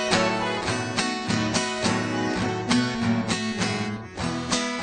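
Instrumental break in a sertanejo song: strummed acoustic guitar playing a steady rhythm, with no singing.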